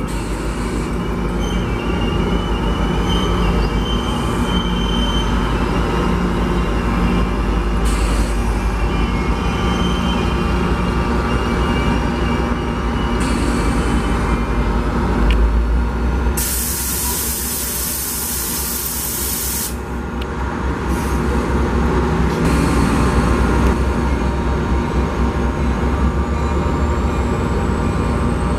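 NJ Transit commuter train coaches rolling past at close range: a steady rumble of wheels on rail, with thin wheel squeal at times and a loud hiss lasting about three seconds midway.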